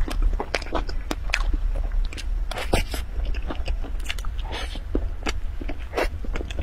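Close-miked eating sounds: soft cream cake being spooned up and chewed, with irregular wet mouth clicks and smacks and a short scrape about halfway. A steady low hum runs underneath.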